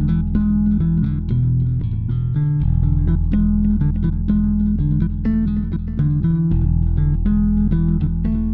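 Instrumental background music with plucked guitar over a bass guitar line.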